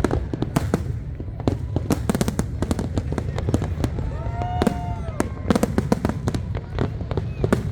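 Fireworks display: a dense run of bangs and crackles over a continuous low rumble of bursts. About four seconds in, a brief pitched tone rises and falls.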